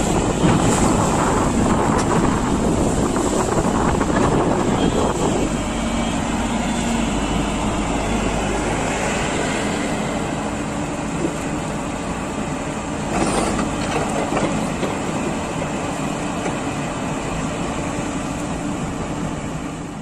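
SANY SY140C crawler excavator running, its diesel engine holding a steady note while its steel tracks clank and clatter as it moves through shallow water. The clatter is heaviest for the first five seconds or so, then the machine settles into a steadier run.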